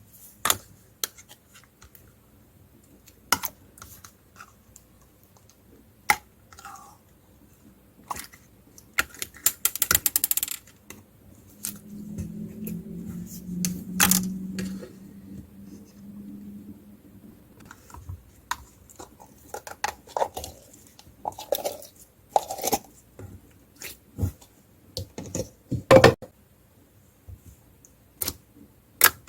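Clear slime with beads being squeezed and pressed by hand, giving scattered sharp clicks and crackles, with a quick run of clicks about ten seconds in. A low hum sounds for a few seconds in the middle.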